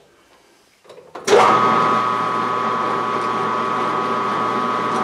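Machine tool spindle switched on after a couple of faint clicks, about a second in, then running steadily at 220 rpm, set up for boring, with a steady whine over a low hum.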